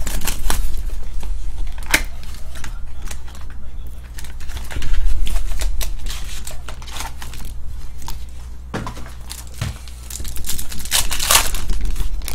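Hands handling and opening a cardboard trading-card hobby box, with scattered sharp clicks and scrapes of the cardboard. Near the end, the plastic wrapper of a card pack is torn open and crinkled.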